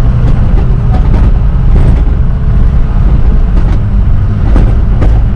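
Cabin noise of a 4x4 truck in four-wheel drive on a sandy dirt track: a loud, steady rumble of engine and tyres, with frequent knocks and rattles as the truck jolts over the rough ground.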